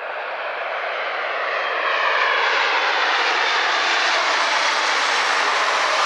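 Jet engine noise from the four Honeywell LF507 turbofans of an Avro RJ100 airliner on landing approach. It grows louder over the first two seconds as the aircraft nears, then holds steady.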